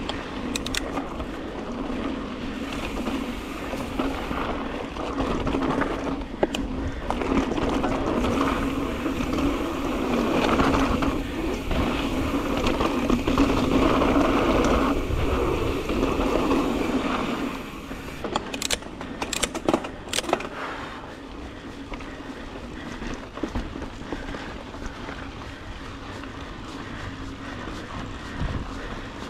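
Mountain bike rolling along a dirt singletrack: steady tyre noise and rattle from the bike, louder through the middle stretch and then easing off. A few sharp clicks come about two-thirds of the way through.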